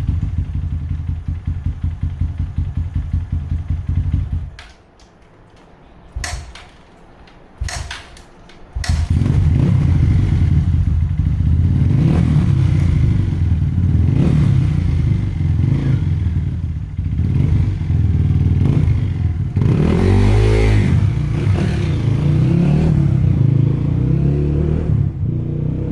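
Honda CRF150 four-stroke single-cylinder dirt bike engine running, then cutting out about four seconds in. After two brief catches it starts again a little before nine seconds and runs on steadily.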